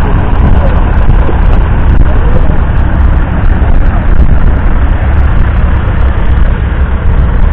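Zetor 4511 tractor's 3.1-litre four-cylinder diesel engine running steadily, with a heavy low rumble throughout.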